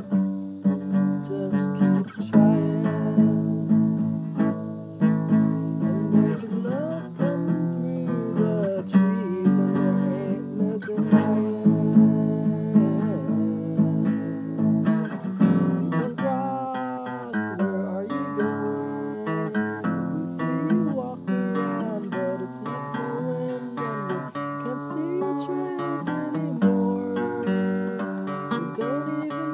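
Acoustic guitar being played, with chords held under a second melody line that slides up and down in pitch.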